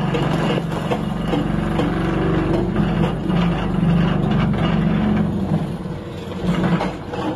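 Hydraulic rock breaker on a Doosan excavator hammering into rock, a rapid steady run of blows over the excavator's engine; the low hammering eases about five seconds in.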